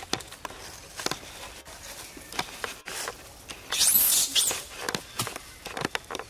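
Dry leaf litter crackling and rustling under footsteps. There is a short, loud, high-pitched squeal that rises and falls about four seconds in.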